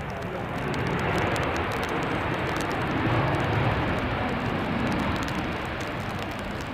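Jet airliner engines at reverse thrust on the landing rollout: a broad rushing noise that swells about a second in and eases slightly near the end.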